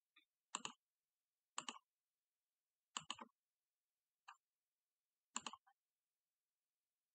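Computer mouse clicking about five times, short sharp clicks one to one and a half seconds apart, the fourth one fainter, with near silence between.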